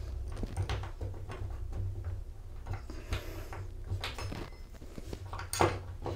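Light handling sounds of a small metal mounting plate and screws being held and shifted by hand against a drywall: scattered small taps, scrapes and rubs, over a low steady hum.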